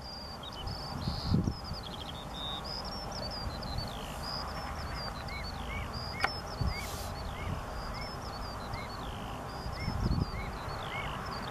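Several birds calling in the background: a busy run of short high chirps and twitters, joined from about halfway by a repeated short arched note about twice a second.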